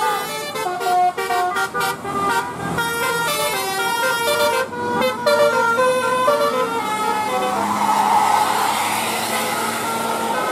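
A bus's telolet horn, the multi-tone musical air horn of Indonesian buses, plays a stepped melody of short held notes for about five seconds. A rushing noise then swells from about seven seconds in.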